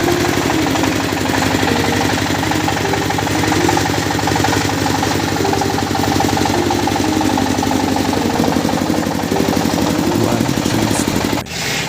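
A wood-cutting saw's engine runs steadily at a fast, even pulse, then breaks off abruptly near the end.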